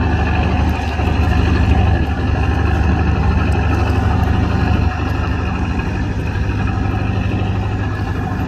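A boat's diesel engine idling steadily, a constant low hum with a few fixed tones above it.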